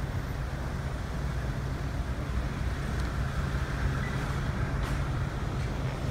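Street traffic: vehicle engines running with a steady low rumble, and a couple of faint brief sounds about five seconds in.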